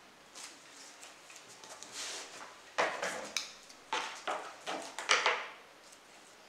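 Sheets of printer paper rustling and sliding across a wooden tabletop as pattern pages are handled and taped together, in a string of irregular crinkly bursts, the sharpest about three seconds in and around five seconds.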